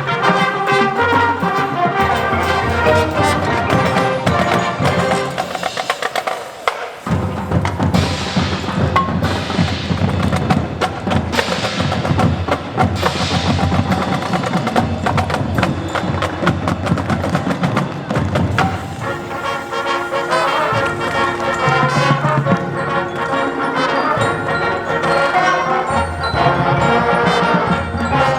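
Marching band of winds and percussion playing, with many quick percussion strikes over the melody; a deep bass part comes in about seven seconds in.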